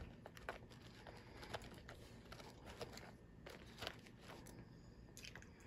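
Faint, irregular crunching and clicking of a person chewing a bite of a Kit Kat wafer bar.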